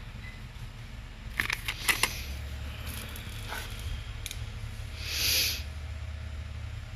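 Packs of crayons being handled on a store shelf: a few sharp clicks and knocks about one and a half to two seconds in, and a short hiss a little past the middle, over a steady low hum.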